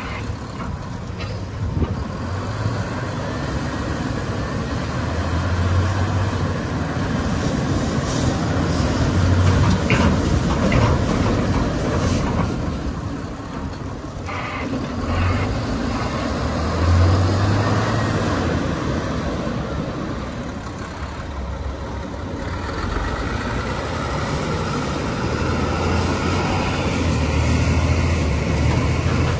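2016 Volvo A30G articulated dump truck's diesel engine running as the truck drives across gravel, with the sound of its tyres on the stones. The engine note swells and eases several times as it moves.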